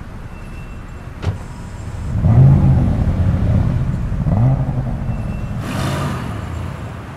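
Car engine revving twice, its pitch rising and falling each time, after a sharp click about a second in, with a short rush of noise near the end.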